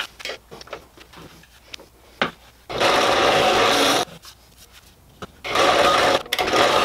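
Drill press boring holes in a wooden workpiece: two drilling passes of about a second and a half each, the second running on past the end, with small knocks and clicks between them as the piece is repositioned.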